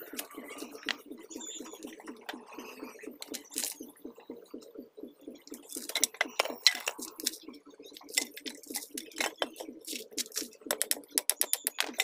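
Wooden boards knocking and clacking together as they are handled against a half-built wooden frame, with a cluster of sharp knocks about halfway through and a run of quick clicks near the end. A low pulsing sound, about five beats a second, runs underneath.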